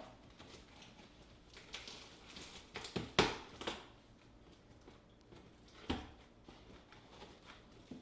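Big metal box staples being pried out of a cardboard box lid with a hand tool: scraping and creaking of cardboard with sharp clicks, the loudest about three seconds in and another near six seconds.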